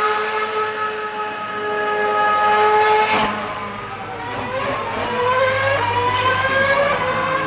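2013 Formula 1 cars' 2.4-litre V8 engines at high revs. One is held steady and slowly drops in pitch for about three seconds. Then an engine climbs in pitch through a run of gear changes.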